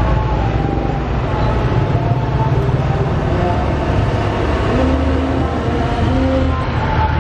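Road traffic passing close by at a level crossing: motorcycle engines and light trucks' diesel engines running as they cross the tracks, a steady low engine rumble with pitch rising and falling as vehicles go by.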